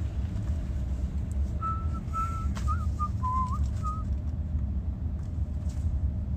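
Steady low road rumble inside a moving car's cabin. About one and a half seconds in, a person whistles a short wavering tune of a few notes for a couple of seconds.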